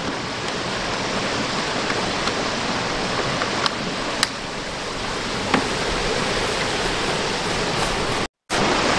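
Steady rush of a creek, with a few light clicks as a 50-amp power cord's twist-lock plug is pushed and turned into the RV's power inlet. The sound drops out for a moment near the end.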